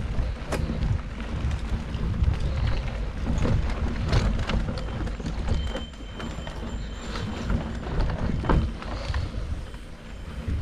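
Mountain bike riding down a dirt singletrack: wind rushing over the microphone and tyres rolling on dirt and dry leaves, with scattered clicks and rattles from the bike over bumps.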